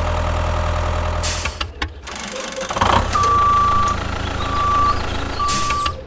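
Tractor engine running with a steady low hum, then three steady high-pitched beeps of a reversing alarm in the second half.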